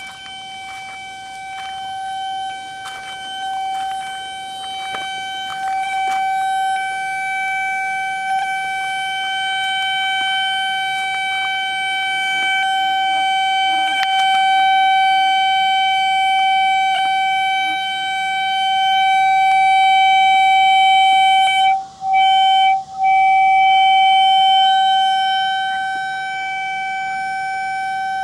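Sewer camera locator sounding a steady, high, flute-like tone as it picks up the sonde in the camera head. The tone grows louder over the first twenty seconds as the locator homes in, cuts out twice briefly about two-thirds through, then eases off a little.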